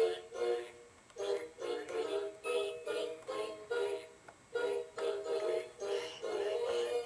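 Music: a simple tune of short, evenly paced notes, two to three a second.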